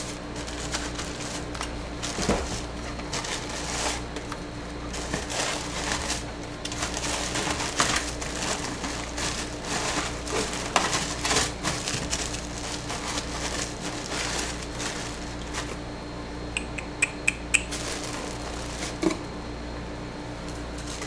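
Boxed soap bars and paper packing being handled and shuffled into a shipping box: irregular light taps, scuffs and paper crinkles, with a quick run of small sharp clicks about three-quarters of the way in, over a steady low hum.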